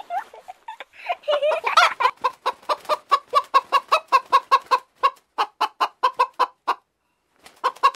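A domestic hen clucking in a quick, even run of short clucks, about four a second, stopping briefly near the end and then starting again.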